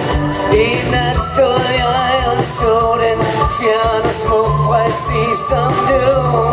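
Live pop-rock band music with a singing voice over guitar, bass and drums.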